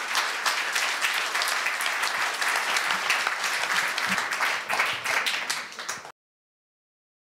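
Audience applauding, a dense run of many people's claps that cuts off abruptly about six seconds in.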